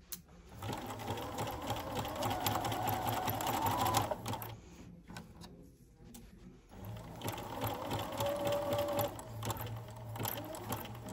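Bernina domestic sewing machine stitching steadily, stopping about four seconds in for a couple of seconds, then starting again and running on.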